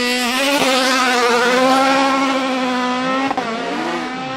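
Sports-prototype hillclimb race car's engine held at steady high revs on the start line, the note wavering slightly. A little after three seconds the sound breaks off, and then a rising engine note follows as the car accelerates away up the road.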